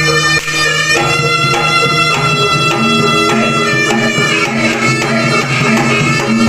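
Loud Javanese jaranan gamelan music: a reedy shawm (slompret) plays a held, changing melody over drums and percussion.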